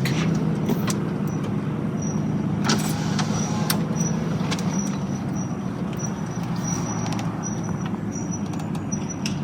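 Short, high-pitched squeak repeating about twice a second, in time with the rear wheel of a 2010 Chevrolet Silverado turning at a slow roll, over the truck's steady running hum. It starts a few seconds in. The squeak seems to come from the back right wheel and stops when the brakes are applied, though the drum brake shoes have plenty of wear left.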